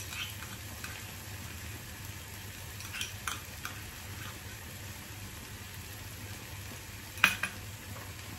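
Chopped onion, capsicum and carrot sizzling steadily in a little oil in a frying pan, with a few light clinks as ketchup is scraped from a small bowl, and one sharp clack near the end.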